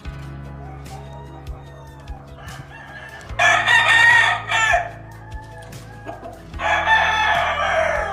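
Rooster crowing twice, each crow about a second and a half long, over a steady low hum.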